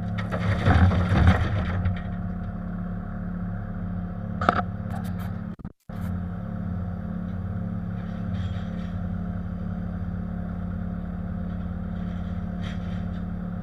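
Bobcat compact diesel machine engine running steadily under work, with a burst of scraping and clatter in the first couple of seconds and a single sharp knock a few seconds later.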